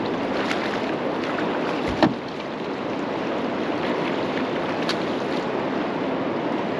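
Steady rushing noise of river water and wind on the microphone, with one sharp knock about two seconds in.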